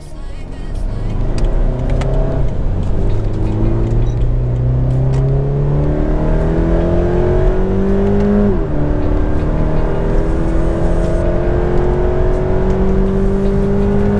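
Scion FR-S's 2-litre four-cylinder boxer engine accelerating, heard from inside the cabin: the engine note climbs steadily, drops sharply at an upshift of the six-speed automatic about eight and a half seconds in, then climbs again.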